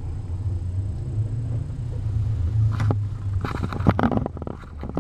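Mother cat purring close up: a steady low rumble. Rustling and soft scuffs on the fleece blanket from about three and a half seconds in, as she steps among the kittens.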